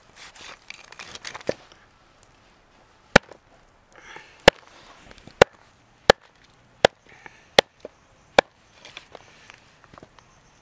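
Chopping with a blade: seven sharp, evenly spaced strokes about three-quarters of a second apart, after a second or two of scraping and rustling.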